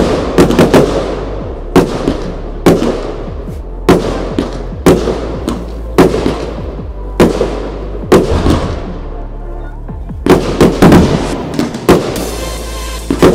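Fireworks display: aerial shells bursting in a steady run of sharp bangs about once a second, each trailing off as it fades, with a quicker cluster of bangs about three-quarters of the way through.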